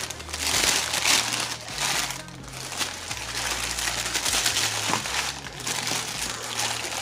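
White tissue paper crinkling and rustling as hands pull it back from around boots in a shoebox, in surges with a short lull partway through. A background song's bass line runs underneath.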